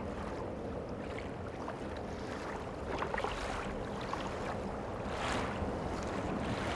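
Lake water lapping, with wind noise on the microphone. The wash swells gently about three seconds in and again about five seconds in.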